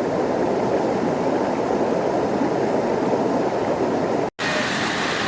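Valley stream water rushing in a steady, even noise. It cuts out for an instant about four seconds in and comes back slightly brighter.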